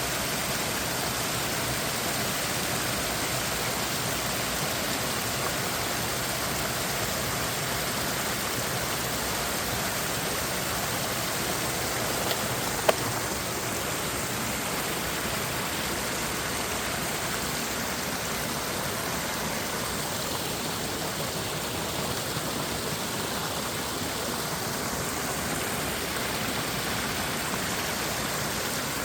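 Mountain stream running over rocks: a steady rush of flowing water. A single sharp click comes about halfway through.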